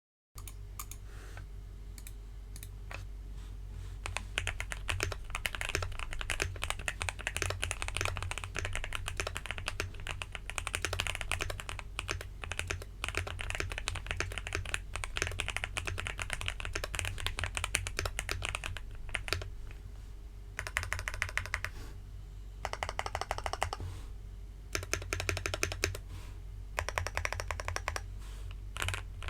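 Typing on a Finalkey V65 R2 mechanical keyboard with Gateron G Pro Silver linear switches, Hammerhead keycaps, case and plate foam and a tape mod. A few single keystrokes at first, then a long run of fast, continuous typing, then several bursts of typing broken by short pauses.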